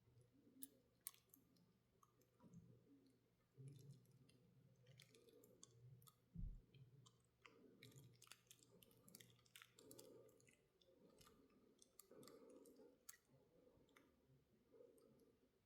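Near silence broken by faint, scattered clicks and light taps of small parts being handled on a workbench, with one soft low thump about six and a half seconds in.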